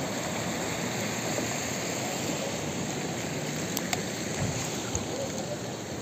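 Steady rushing of rough sea surf and wind on the shore, with a few faint clicks near the end.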